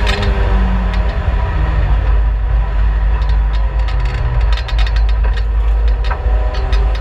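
Turbocharged Vauxhall Astra GSi race car heard from inside the cabin at speed: the engine runs under heavy low drone and road rumble, its note moving up and down with the throttle, with a run of sharp clicks and ticks in the second half.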